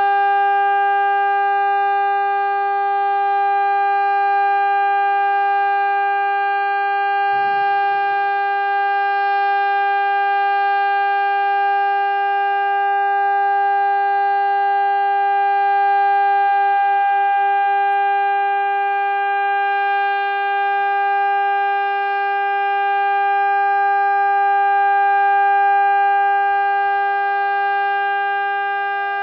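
Warning siren sounding one steady, unbroken tone held at a single pitch, with no rise or fall, swelling only slightly in loudness.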